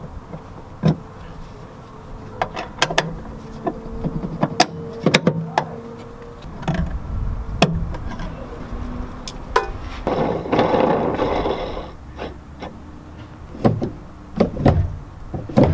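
Irregular metallic clicks and clinks as a shifter rod is fitted to the bottom of a gear shifter and an E-clip is snapped on with pliers. There is a brief rasping noise about ten seconds in. Near the end come a few sharp clunks as the newly fitted short shifter is moved through the gates of the BMW Getrag gearbox.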